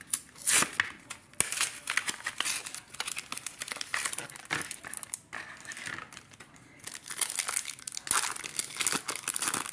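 Crinkling and tearing of packaging as a Yu-Gi-Oh booster pack is freed from its plastic blister and its foil wrapper is torn open by hand. It is a run of crackles, loudest about half a second in and again near the end as the foil tears.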